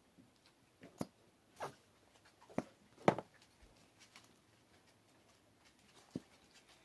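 Handling noise: five scattered light clicks and taps of small objects being picked up and set down on a tabletop, the sharpest about three seconds in.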